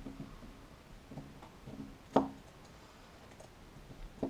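Faint sounds of a small screwdriver turning an M3 screw into a plastic end-stop mount, with one sharp click about two seconds in.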